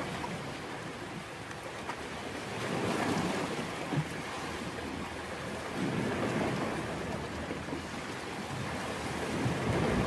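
Sea waves washing onto the shore, swelling and fading every three seconds or so, with a short tap about four seconds in.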